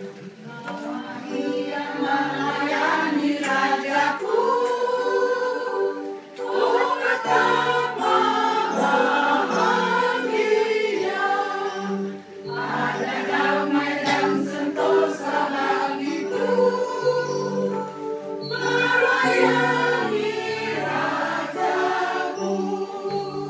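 Choir of older women singing a Christian song together, in phrases broken by short pauses.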